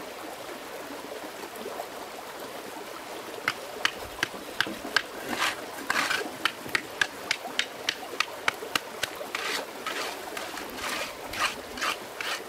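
Stream water running steadily, joined about three and a half seconds in by a quick, irregular series of sharp taps, two or three a second.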